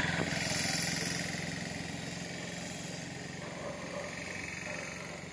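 A motor vehicle's engine running with a steady hum and hiss, dying away gradually as it moves off.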